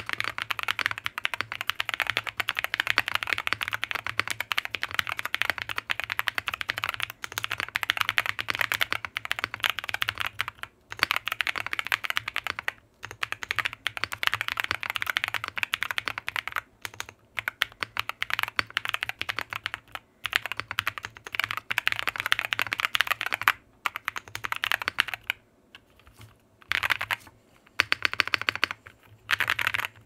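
Fast continuous typing on a JRIS65 custom mechanical keyboard with TECSEE Neapolitan linear switches, PBTFans RIM PBT keycaps and a brass plate, fully dampened with the kit's foams and tape. The clacks come in a dense, even stream, broken by a few short pauses and a longer lull a few seconds before the end.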